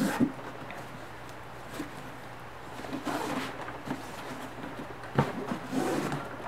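A cardboard gift box being handled by hand: a few short taps and knocks against the box and desk, with brief stretches of cardboard and ribbon rustling, over a steady low room hum.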